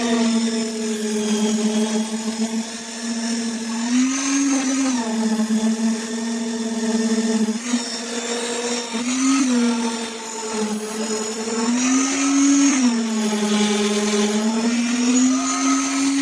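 Motor of concreting equipment running with a steady high whine, its pitch rising briefly four times, about every three to four seconds.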